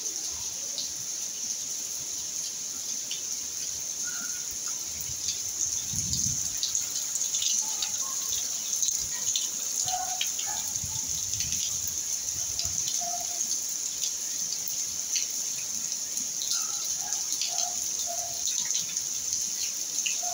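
Rain falling and dripping, a steady hiss with many scattered small drips. Several short faint calls come through now and then.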